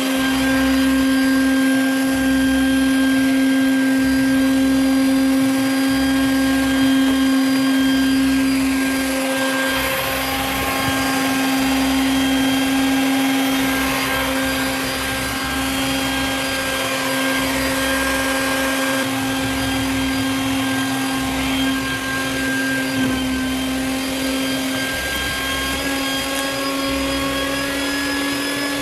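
Small canister wet/dry shop vacuum running steadily with a constant-pitch motor hum, its hose nozzle sucking up dog hair and debris from a concrete floor.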